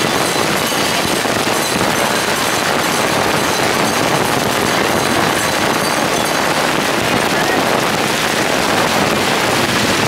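Heavy rain pouring onto a wet road: a steady, even hiss.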